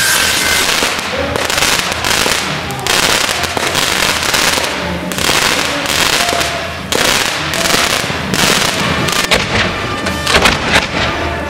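Fireworks crackling and popping in dense, continuous bursts, with a few sharper bangs near the end; music plays underneath.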